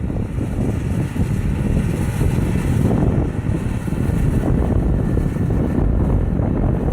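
John Deere cotton picker running steadily, a dense low rumble of engine and machinery with no clear changes.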